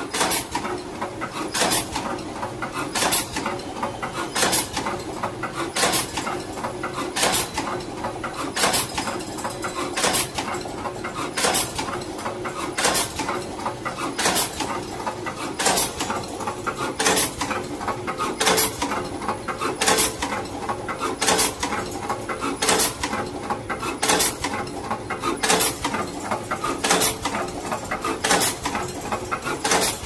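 Automatic wire cutting, stripping and crimping machine running in continuous cycle: a short, sharp stroke about every second and a half over a steady mechanical whir, each stroke one finished wire.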